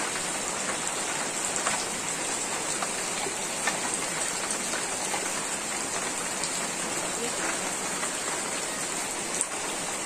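Torrential rain falling steadily on a waterlogged yard, an even hiss with a few faint taps of drops.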